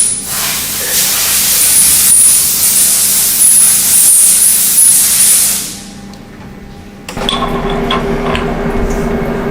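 Loud spraying hiss inside a CNC milling machine that cuts off suddenly about six seconds in. About a second later a steady machine hum with a low tone starts.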